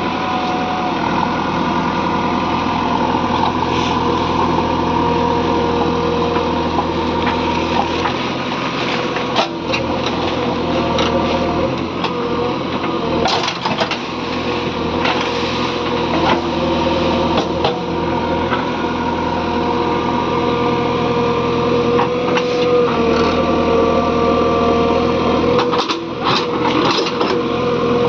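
JCB 3DX backhoe loader's diesel engine running steadily at work, with occasional sharp clanks and knocks.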